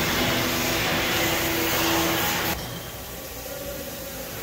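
Industrial machinery running on a shop floor: a loud steady hiss over a hum. About two and a half seconds in the hiss cuts off suddenly, leaving a quieter hum.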